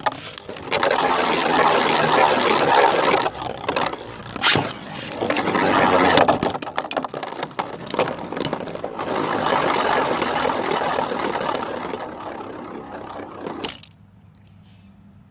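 3D-printed Beyblade spinning tops battling in a stadium: continuous scraping and whirring of the tops grinding across the stadium floor, with sharp clashes about four and a half and six seconds in. The noise stops abruptly near the end as the battle finishes.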